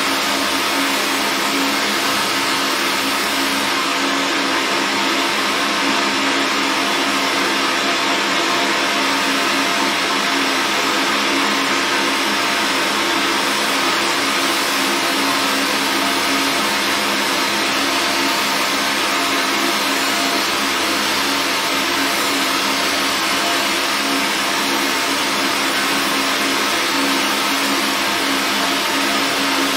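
Fiber laser engraver running: a steady fan whir with constant low hum tones and no change in pitch.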